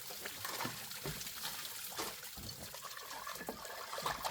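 Water trickling and splashing steadily, with a few light knocks.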